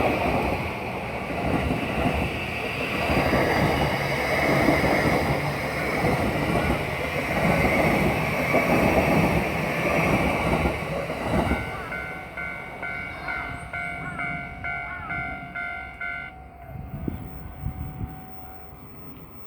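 E235-series electric train passing over a level crossing with rumble and wheel clatter, fading away after about eleven seconds. The level-crossing alarm keeps ringing in an even, repeating ding for about five seconds more, then stops suddenly as the crossing clears.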